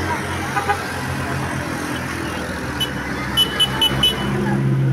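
Bus engine running, getting louder near the end, with a quick run of five short, high horn toots about three seconds in.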